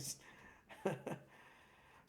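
A man's speech breaking off in a hesitant pause: a cut-off 's' sound, a short vocal sound about a second in, then quiet room tone.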